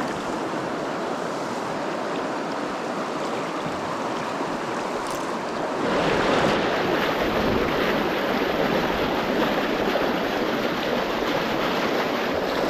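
Rushing river current: a steady rush of fast water that becomes louder and fuller abruptly about six seconds in.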